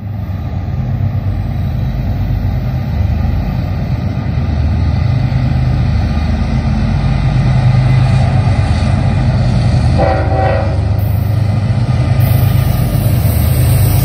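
Union Pacific diesel locomotives leading an eastbound freight train out of a snow shed, their engines a loud, steady low drone that grows louder as they approach. A short horn blast sounds about ten seconds in.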